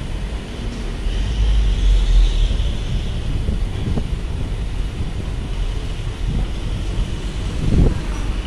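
Queued trucks' engines running with a steady low rumble, and a car driving up through the toll lane, swelling about two seconds in. A few soft knocks near the end.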